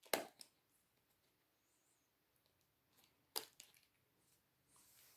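A few faint plastic clicks as the end caps are pulled off a Roomba brushroll, in two pairs: one just after the start and one a little past three seconds in.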